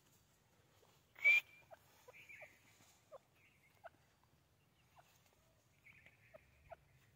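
Grey francolin making soft, short clucking notes at irregular intervals, with one louder, sharper burst about a second in.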